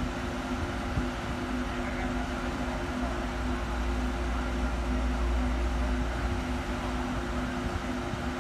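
Steady mechanical hum with two steady tones, one of them pulsing, over a noise haze; a low rumble swells about three seconds in and fades about three seconds later.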